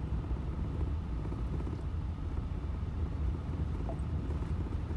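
Steady low rumble of a vehicle driving on a gravel road, heard from inside the cabin: tyre and road noise with engine hum.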